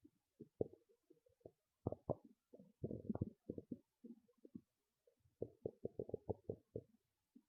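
Human stomach gurgling: faint, low, short bubbling pops that come in loose clusters, with a quick run of pops about two-thirds of the way through.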